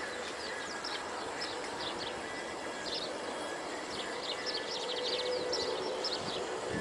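Outdoor ambience of many birds chirping, with short, quick high-pitched trills repeating over a steady background hiss. A faint steady hum comes in about five seconds in.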